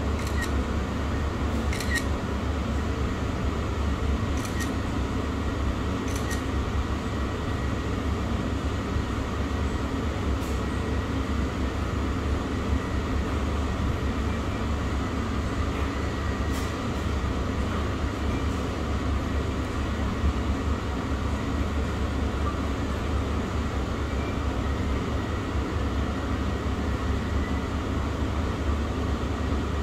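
Steady low droning room noise, with a few faint light clicks during the first half.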